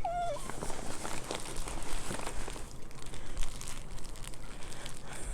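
Plant shipping packaging being unwrapped by hand, with irregular crinkling and rustling.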